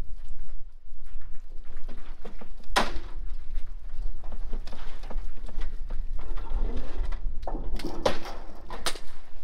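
Wind buffeting the microphone as a steady low rumble, with a few sharp knocks from work on the corrugated metal roof sheeting: one about three seconds in and two near the end.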